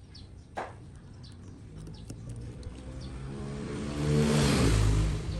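An engine running and building up over a few seconds, loudest near the end before it drops away, with a small click about half a second in.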